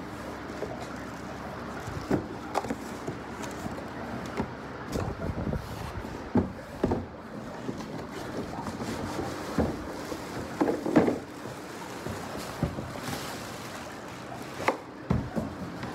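A cardboard box being handled and a plastic-wrapped mini stepper pulled out of it: irregular knocks and thumps of cardboard and hard plastic, with plastic wrap crinkling, over a steady low hum. The busiest stretch of knocks comes about eleven seconds in.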